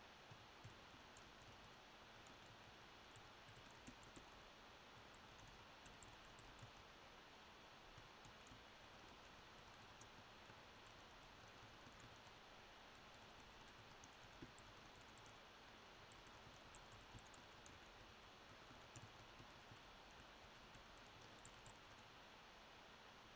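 Near silence with faint, irregular clicks of typing on a laptop keyboard.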